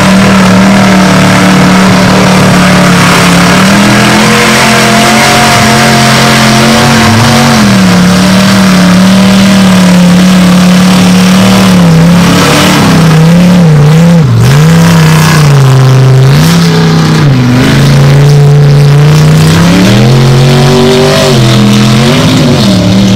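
Ford Explorer mega mud truck's engine at full throttle through a mud bog, revs held high at first, then surging up and down again and again through the second half of the run.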